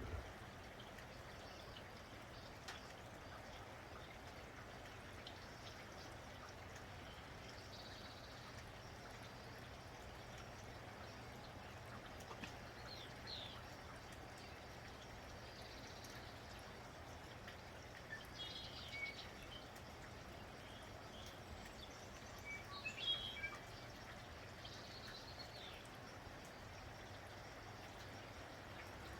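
Steady, faint rain with short bird chirps and calls scattered every few seconds, the loudest cluster about three-quarters of the way through.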